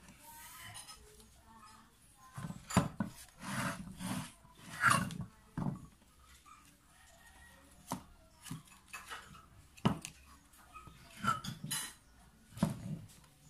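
Handling noise from a small electric water pump being picked up, turned over and set down by hand on a tabletop: irregular knocks and clunks of its metal body, with a few sharp clicks and rubbing in between.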